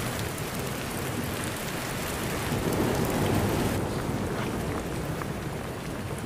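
Rain of a thunderstorm falling steadily, with a low rumble of thunder that swells about halfway through and then eases.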